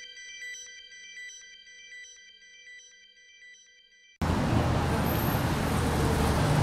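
A ringing chime of several steady tones fading away over about four seconds, then an abrupt cut to loud, steady vehicle noise with a low engine hum.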